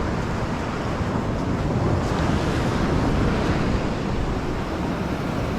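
Ocean surf washing on the shore with wind buffeting the phone's microphone, a steady rushing noise with a low rumble.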